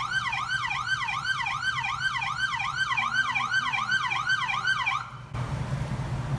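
Police car siren on a fast yelp, rising and falling about three times a second, that cuts off suddenly about five seconds in, leaving a low steady rumble.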